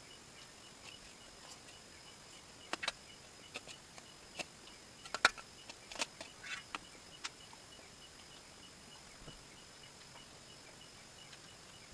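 A person eating noodles: a scattering of sharp clicks and short wet smacks and slurps in the middle stretch, the loudest about five seconds in. Behind it a faint, even pulsing chirp, like crickets, keeps going.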